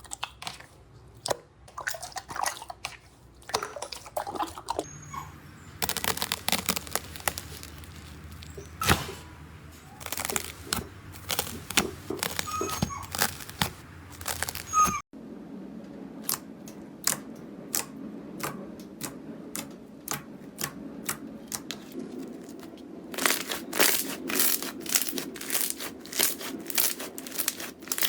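Slime being squeezed and worked by hand, giving many sharp crackling clicks and pops. The sound changes abruptly about halfway through, and the clicks come thick and fast near the end.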